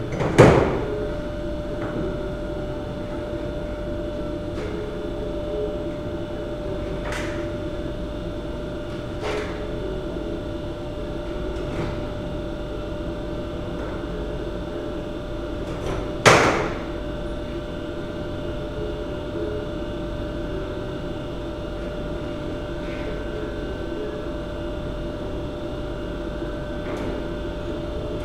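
Metal knocks and clanks from handling the cracked bell on its steel swage block. One loud knock comes about half a second in and another, ringing briefly, about 16 seconds in, with a few faint clicks between, over a steady hum.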